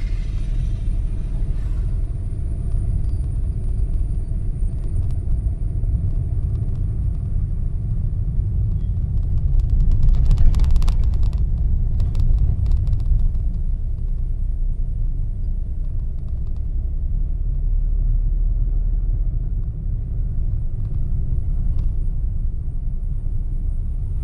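Steady low rumble of a moving vehicle, with a short run of rattling clicks about ten seconds in.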